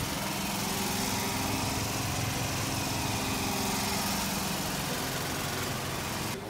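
A small engine running steadily at a constant speed over a background of outdoor noise; it cuts off suddenly near the end.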